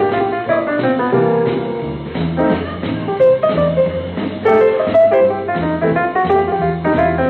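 Jazz piano playing: quick runs of notes over a steady, repeating bass line. The highs are cut off, as on an old 16mm kinescope soundtrack.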